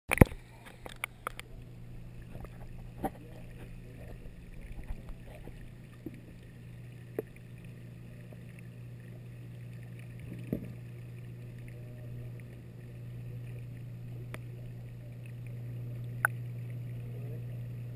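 Steady low hum of a reef aquarium's pumps, with a faint wash of moving water. Scattered clicks and knocks come through it, several in the first second or so and then single ones every few seconds.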